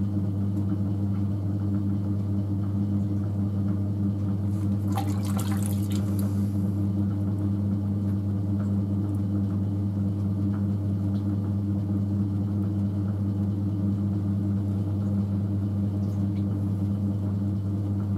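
Electric potter's wheel running with a steady motor hum while wet hands shape a spinning clay vase, with a brief wet swish about five seconds in.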